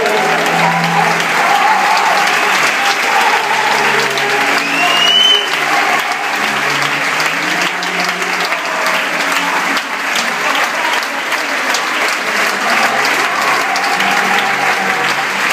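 Theatre audience applauding steadily, with one short rising whistle about five seconds in.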